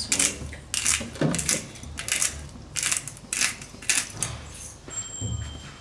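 Steel ladle stirring rice and water in a kadai, scraping and clinking against the pan about two to three times a second as salt is stirred in.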